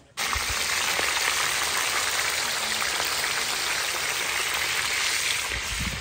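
Hot oil sizzling steadily as whole fish fry in a wide round pan over a wood fire. The sizzle starts abruptly and eases off near the end.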